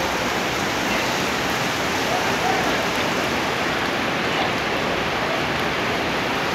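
Rain falling steadily, an even hiss with no breaks, with faint voices in the background.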